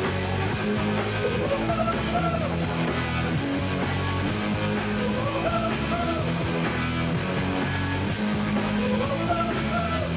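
Rock band playing an instrumental passage on guitars and bass. A melodic phrase bends up and down in pitch and returns about every three to four seconds.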